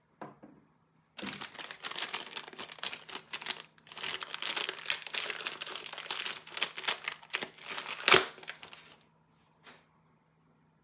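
A thin clear plastic bag crinkling and crackling as a plastic toy zebra is worked out of it, with a louder crackle near the end. A light knock comes just before it begins.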